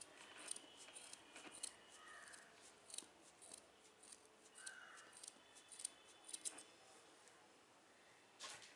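Scissors snipping through a thick bundle of macrame cord, a run of short, faint cuts one after another, then a single soft knock near the end.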